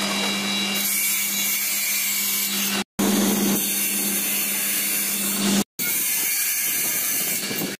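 Table saw ripping a wooden panel: the blade's steady hum under the loud hiss of the cut, broken off twice briefly.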